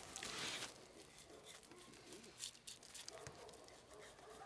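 Quiet knife work on a raw beef rib roast: a short scraping rush near the start as the blade cuts through the fat cap, then a few soft clicks. Faint animal calls sound in the background.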